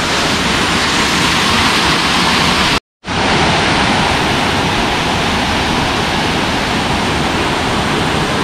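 Waterfall's rushing water: a loud, steady roar that cuts out completely for a moment about three seconds in, then resumes.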